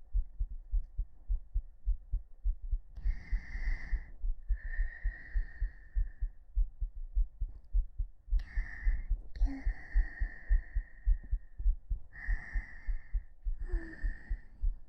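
A person's heartbeat heard through a binaural microphone pressed against the chest: a steady run of low thumps. Soft breaths come several times over it, and a whispered "gyuu" falls about two-thirds of the way in.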